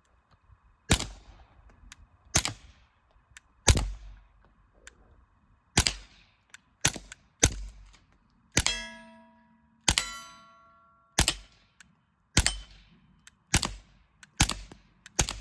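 Suppressed Taurus TX22 Compact .22 LR pistol fired about thirteen times at an unhurried pace, roughly a shot every second or so. Two of the shots, about halfway through, are followed by a metallic ringing that lasts about a second.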